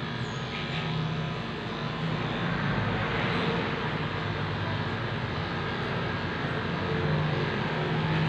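Corded electric pet clippers running steadily with a low buzz as they shave through a dog's long coat.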